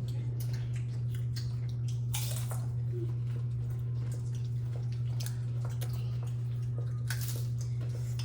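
People chewing and biting into taco nachos, with scattered small clicks and two louder crunches, about two seconds in and near the end, over a steady low hum.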